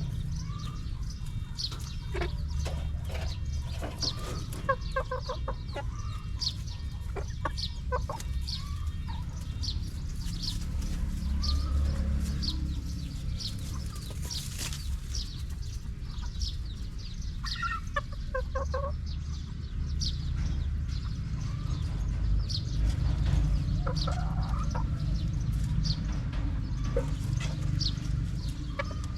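Chickens clucking in short clustered calls, with many brief high chirps throughout, over a steady low rumble.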